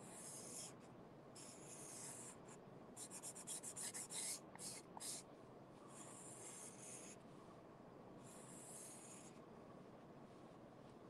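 Felt-tip marker drawing lines on painted corrugated cardboard: faint scratchy strokes, several longer ones spaced a second or two apart, and a quick run of short strokes about three to five seconds in.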